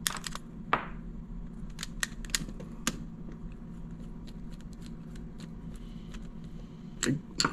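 Scattered light clicks and taps of small reel parts being handled as a shim washer is fitted into a fishing reel's handle knob to take up play.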